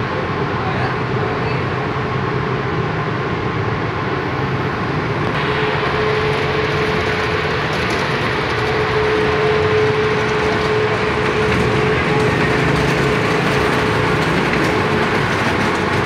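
Steady, loud mechanical running noise, typical of a vehicle running nearby. A single steady tone joins it about five seconds in and stops near the end.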